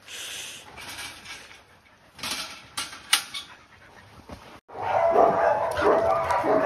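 Siberian huskies vocalising: a few sharp clicks and rattles in the first half, then, from about two-thirds in, a loud run of high, wavering whines and yips.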